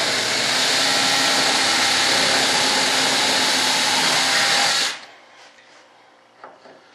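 Cordless drill running steadily as it bores a hole into the model airframe's structure, then stopping abruptly about five seconds in.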